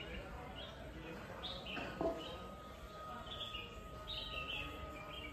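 Birds chirping in repeated short calls over steady outdoor background noise. About two seconds in there is a brief knock, and then a thin steady high tone holds on.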